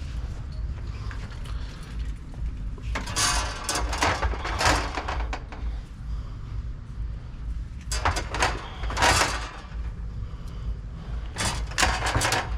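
Products being handled and loaded into a vending machine. There are three spells of rustling and scraping: one about three seconds in, one around eight to nine seconds, and a short one near the end. A steady low hum runs underneath.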